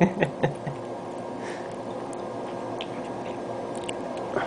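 Cat eating its food: a few short clicks about half a second in, then soft scattered ticks of chewing over a faint steady background.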